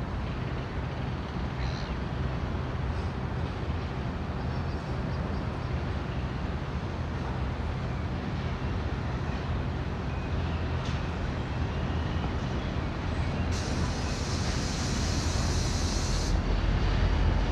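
Diesel-electric locomotive G527, a G class with an EMD two-stroke V16 diesel, approaching with a steady low engine drone that grows louder as it nears. About fourteen seconds in, a high hiss lasts almost three seconds and then cuts off.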